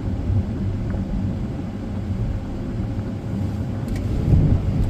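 Steady low rumble of a car moving along the road, engine and tyre noise heard from inside the cabin.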